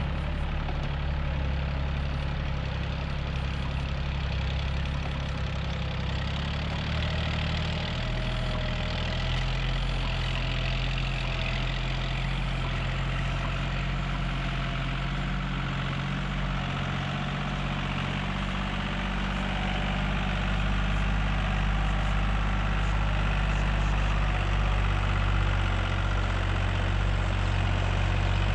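Farm tractor's diesel engine running steadily as it pulls a laser land leveler across the field, getting a little louder near the end.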